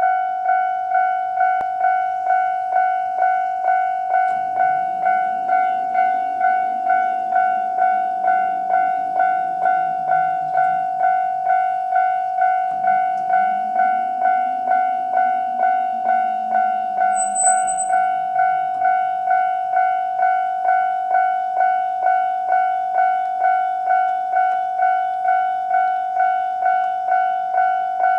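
Japanese level-crossing warning bell ringing its standard alarm, an electronic clanging tone struck evenly about twice a second. A low rumble swells and fades twice beneath it.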